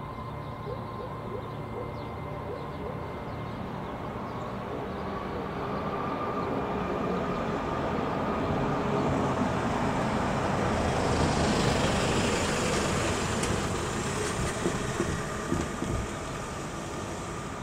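A van approaching and driving over the level crossing. Its engine and tyre noise build steadily, and near the end comes a short run of knocks as its wheels go over the rails.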